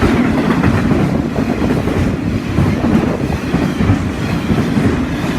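Container freight train's wagons rolling past at close range, a loud, steady rumble of wheels on rail with many small irregular knocks.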